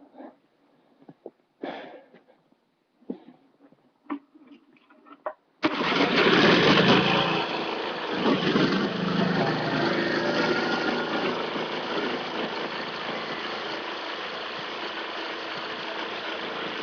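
A few short knocks and handling scrapes, then, about five and a half seconds in, a Briggs & Stratton small single-cylinder engine fires abruptly and keeps running steadily. This is its warm-up run, with the exhaust led through an aluminium tube pushed into the muffler outlet to make it run quieter.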